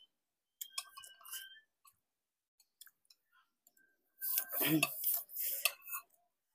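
People eating: chewing and lip-smacking with small wet mouth clicks about a second in. About four seconds in comes a short voiced murmur mixed with a breathy hiss, lasting about two seconds.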